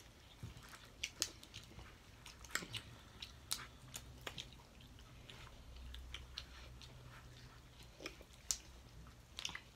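Close-up eating sounds: chewing and biting, with irregular sharp clicks and smacks scattered throughout.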